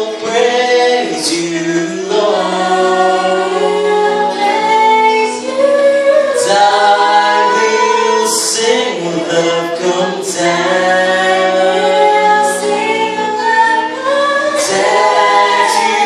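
A man and a woman singing a Christian worship song together into microphones, with long held notes, over acoustic guitar accompaniment.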